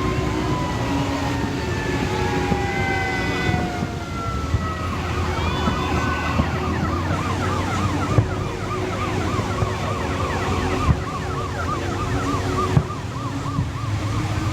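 Emergency vehicle siren: slow, falling wails in the first few seconds, then a fast up-and-down yelp of about three cycles a second, over a low traffic rumble. A few short sharp thumps stand out in the second half.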